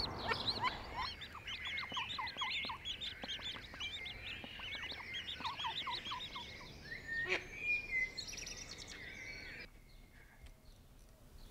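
A brood of day-old ducklings peeping: many quick, high chirps overlapping one another. The peeping stops abruptly about ten seconds in.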